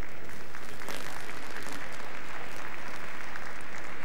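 Crowd applauding, a dense patter of many hands clapping that swells about a second in, as the match ends.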